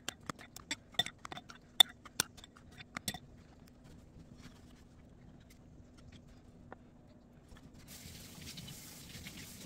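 Kitchen handling sounds: a quick run of sharp clicks and taps from utensils and containers over a faint steady hum, then a soft hiss near the end.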